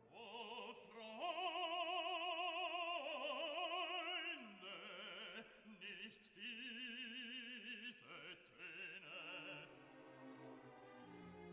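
Background music of operatic singing: a voice holding long notes with wide vibrato, quieter in the second half.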